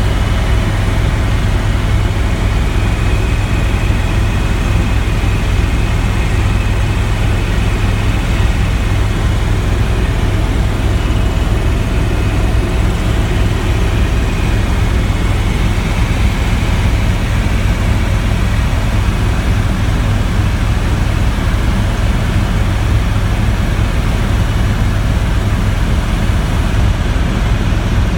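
Helicopter engine and rotor running steadily: a loud, even drone with a strong low hum.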